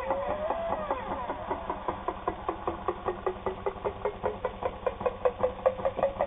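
Bel Air Precision De Luxe all-steel sewing machine running under its electric motor, its mechanism clattering at about five strokes a second, louder near the end.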